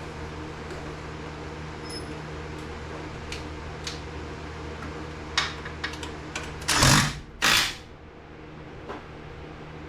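Scattered clicks and knocks of hand work on a truck over a steady fan-like hum, with two short loud rushing bursts about seven seconds in.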